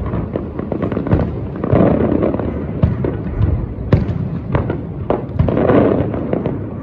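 Aerial fireworks going off: a quick, irregular run of bangs and booms as shells burst, with two longer stretches of dense crackling, about two seconds in and near the end.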